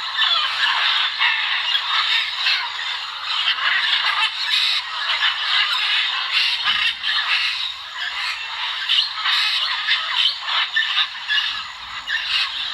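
A group of macaws calling at once, harsh calls overlapping without a break.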